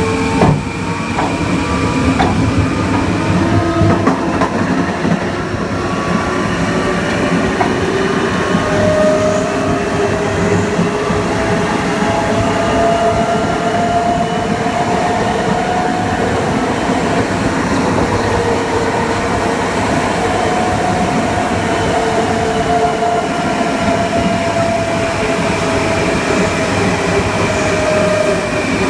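Long Island Rail Road Kawasaki M9 electric multiple unit running at speed: the Mitsubishi IGBT-VVVF inverter and AC traction motors whine in several steady tones that slowly rise and fall in pitch, over continuous wheel and rail rumble. A single sharp click comes about half a second in.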